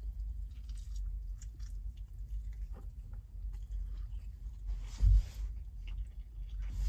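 A person biting into and chewing a mouthful of a soft egg-and-carnitas wrap close to the microphone, with small wet clicks over a steady low rumble. About five seconds in there is a brief, louder rush of noise.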